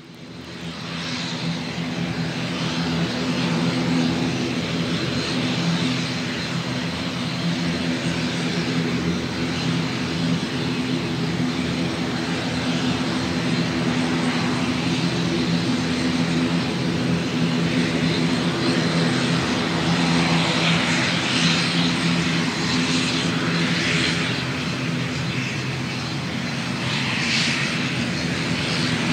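Airbus A330's jet engines running steadily, a low droning hum with a hiss over it and no spool-up.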